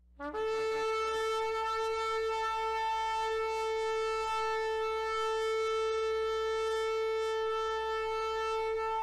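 A shofar blown in one long, steady blast, opening with a brief lower note before jumping up to the held pitch.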